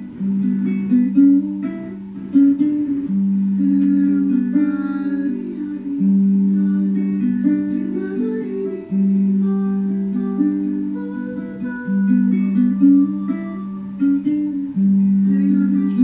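Background music: plucked guitar notes over a low note that changes about every three seconds.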